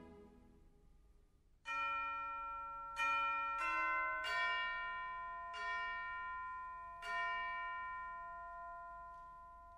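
Bells in the film's music score, struck six times at uneven intervals from a couple of seconds in, each note ringing on and fading. It is a wedding-bell cue.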